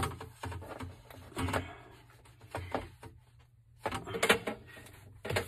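PVC pipe pieces and fittings being handled: a sharp click at the start, then irregular knocks and scrapes every second or so.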